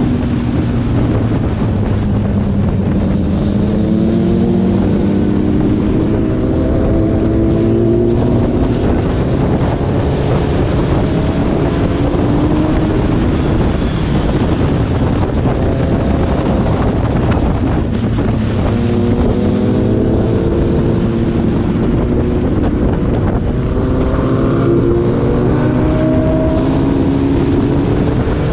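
Kawasaki ZX-10R's inline-four engine running at road speed under heavy wind noise on the microphone. Its pitch climbs several times as the bike accelerates, a few seconds in and again in the last third.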